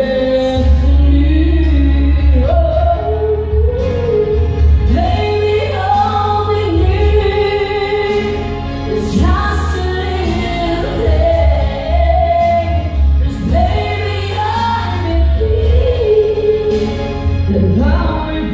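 A woman singing solo into a handheld microphone over a karaoke backing track, holding long notes that slide in pitch, with a steady bass line underneath.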